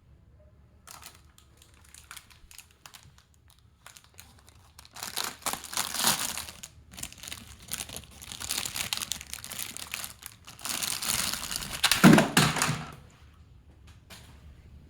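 Packaging being crinkled and torn open by hand while unboxing a toy car. Scattered faint rustles give way, about five seconds in, to dense crinkling and tearing, loudest near the end before it stops.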